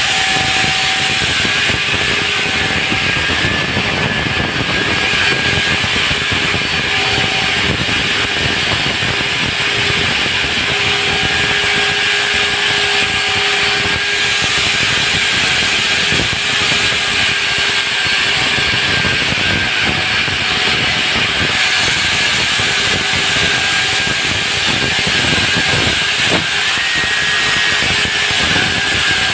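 Core drilling machine running steadily, its core bit cutting into a concrete slab, with a continuous grinding noise and a faint steady whine.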